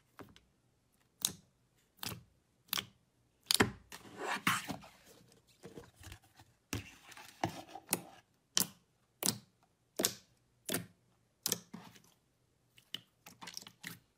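Slime being pressed and poked with fingers, making sharp wet clicks and pops about once every second, with softer squishing between them and a quicker run of small clicks near the end.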